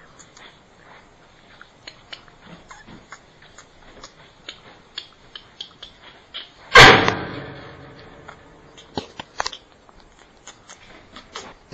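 A single sudden loud bang about seven seconds in, dying away over about a second, among scattered light clicks and taps.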